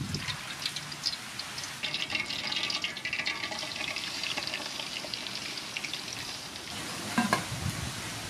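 Soybean oil poured into a large aluminium pot, then a slab of pork belly lowered into the oil, with liquid splashing and many small crackles. Near the end there is a short louder clank as the aluminium lid goes on.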